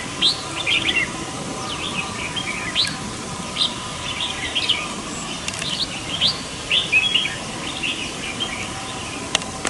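Red-whiskered bulbuls calling: short, quick chirping notes, several a second at times, repeated throughout.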